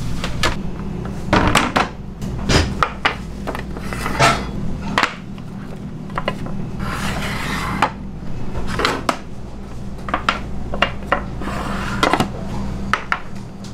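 Metal square pizza pans knocking, clattering and scraping against each other and the counter as they are handled, in irregular sharp knocks. A steady low hum runs underneath.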